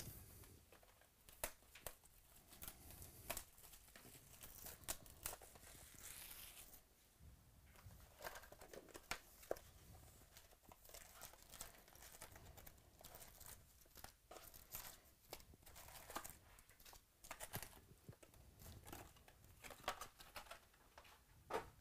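Faint crinkling and tearing of plastic wrap and cardboard as a sealed 2018 Topps Chrome Baseball hobby box is unwrapped and opened, with scattered short rustles and clicks as the foil packs are handled.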